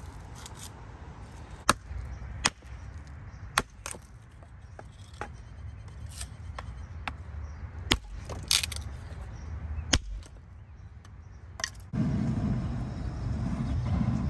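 Scattered sharp knocks and cracks, about nine of them at irregular intervals, like wood or hard objects being struck or handled. Near the end a steady low rumble starts abruptly.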